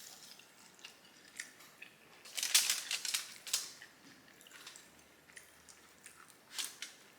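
Close-up chewing with wet mouth smacking: irregular clicky smacks, loudest in a cluster from about two and a half to three and a half seconds in, and again near the end.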